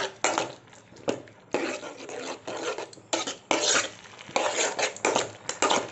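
Metal spoon stirring and scraping around a kadai in quick, irregular strokes. A cornflour slurry is being worked into the sauce to thicken the gravy.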